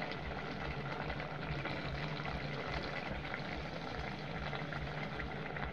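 Chicken stew boiling in a pot: a steady crackling bubbling over a low hum.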